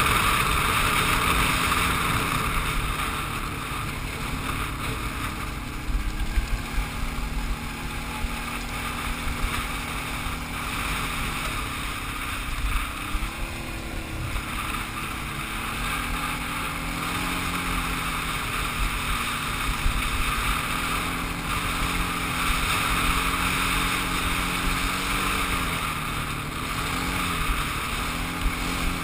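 Quad ATV engine running as it is ridden over a rough dirt track, its pitch rising and falling with the throttle several times. There are occasional short knocks from the bumps.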